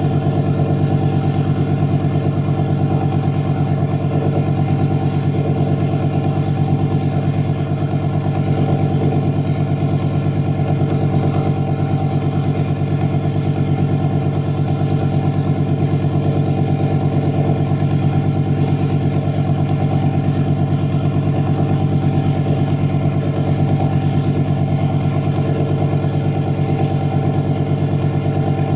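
Motor-driven rotor of neodymium magnets spinning at a steady high speed, a constant even hum with a fast flutter that does not change pitch.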